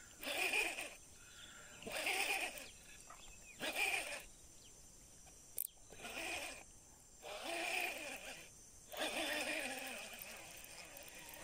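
Baitcasting reel being cranked in short bursts, about six spells of winding with pauses between them, in a stop-and-go lure retrieve. There is one sharp click about halfway through.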